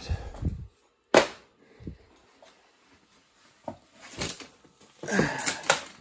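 Footsteps and the knocks of handled gear: a few separate knocks and thumps, the sharpest about a second in and a tighter cluster of them near the end.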